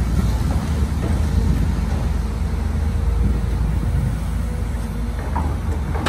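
Diesel engine of heavy earthmoving machinery running steadily with a low rumble and a faint steady whine, and a short knock right at the end.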